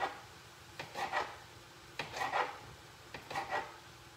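Kitchen knife slicing through smoked sausage on a cutting board: a short sawing rasp and tap with each cut, about one cut a second.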